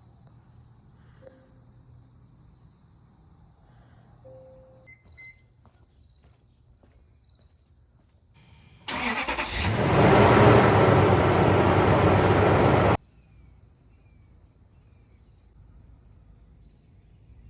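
A vehicle engine starting and running for about four seconds, then cutting off suddenly, after a quiet stretch with faint bird chirps.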